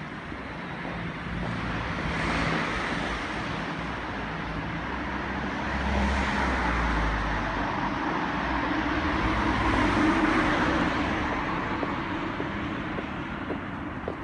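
Road traffic: vehicles passing one after another, the tyre and engine noise swelling and fading about three times, with a deeper engine rumble on the middle pass.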